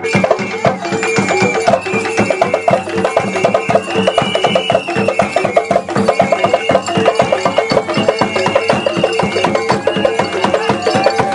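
Kuranko traditional dance music: fast, dense percussion with clacking wood-block-like strikes and drums in an even rhythm, and a melody line above.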